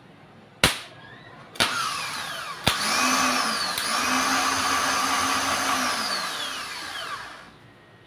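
Rebuilt Mahindra Scorpio starter motor bench-tested in a vise: three sharp clicks, then the motor spins freely with a loud whir that rises, holds steady for a few seconds and winds down near the end.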